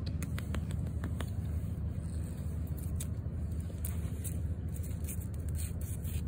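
A dry twig dragged and flicked across a concrete walkway, giving scattered light scratchy clicks, over a steady low background rumble.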